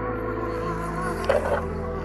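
Background music of held, steady chords that shift to a new chord about a second in, with one short sharp accent near the middle.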